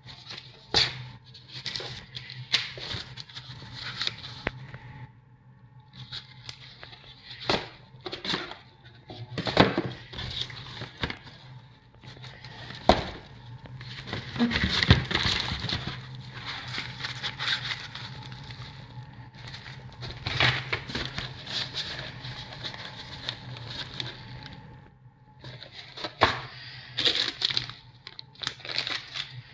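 Plastic parts bags crinkling and rustling as boxed and bagged car parts are handled with gloved hands, with irregular clicks and knocks of cardboard boxes being picked up and set down. A low steady hum runs underneath.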